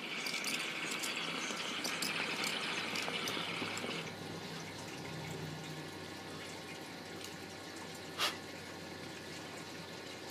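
Water bubbling and crackling in a small glass mini dab rig as it is drawn on, easing off about four seconds in. One brief sharp sound about eight seconds in.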